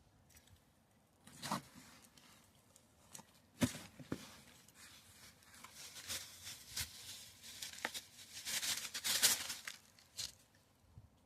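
Digging through dry soil: irregular rustling and scraping of loose earth, with a sharp knock about three and a half seconds in and a longer patch of rustling near the end.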